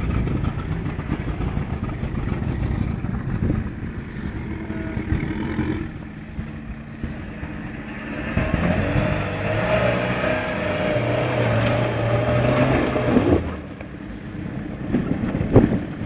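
Toyota Hilux pickup's engine running as the truck crawls slowly over loose gravel. The revs rise a little past halfway, hold steady for several seconds, then drop back.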